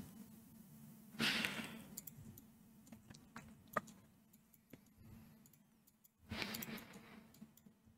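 Scattered clicks of a computer mouse and keyboard, with two breaths out, the first about a second in and the second near the end, over a steady low hum.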